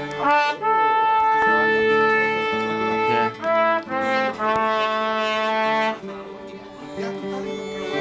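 Mariachi band playing: trumpets blare long held notes over the violins and guitarrón. About six seconds in the trumpets stop and the softer strings carry on.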